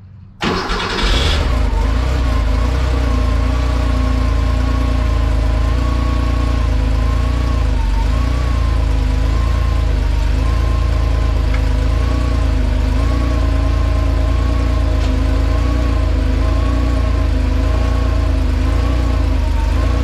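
Air-cooled Porsche 911 flat-six with Bosch CIS K-Jetronic injection starting: it catches almost at once, about half a second in, and settles into a steady idle. A whine near the top of the engine sound wavers up and down in pitch about once a second.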